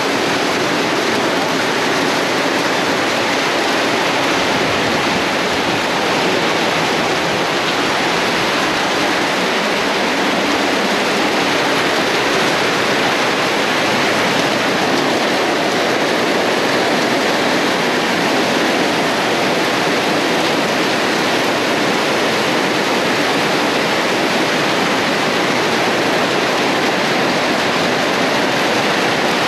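Heavy rain pouring down steadily, a dense even hiss that does not let up.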